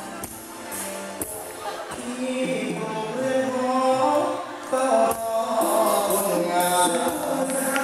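Amplified stage music with a man singing into a handheld microphone; his voice comes in about two and a half seconds in over the accompaniment.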